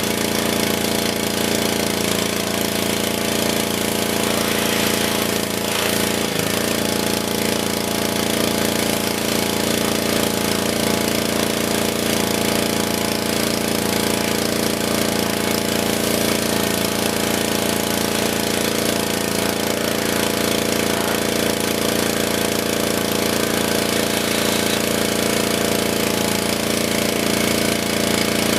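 Honda horizontal-shaft engine running steadily at speed, driving a newly installed pressure washer pump under test.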